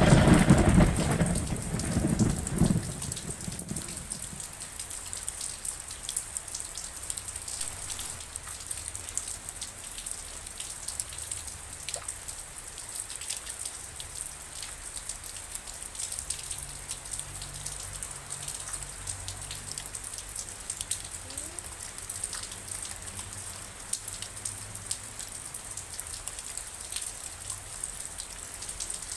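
A roll of thunder fading away over the first few seconds, then steady rain with many separate drops ticking.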